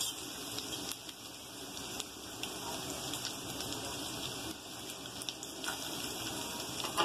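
Chopped garlic sizzling in hot oil in a nonstick kadai: a steady fizzing hiss dotted with small pops, with a sharper tap right at the end.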